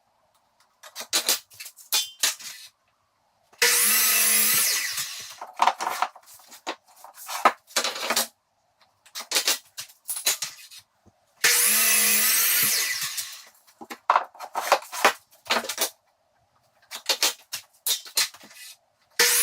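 Power drill running in three short bursts about eight seconds apart, each spinning up and winding down as it drives screws into the plywood cabinet. Short taps and knocks of wood being handled come between the bursts.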